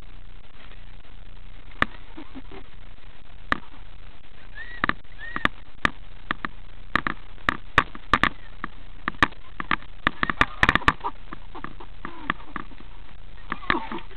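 A run of sharp, irregular clicks and knocks over a steady hiss, coming thickest in the middle and latter part and dying away near the end.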